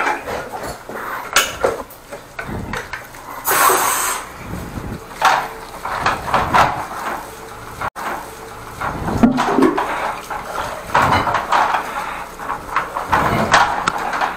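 Irregular clattering and knocking with splashing water, and a short burst of hiss about three and a half seconds in, from high-pressure drain jetting.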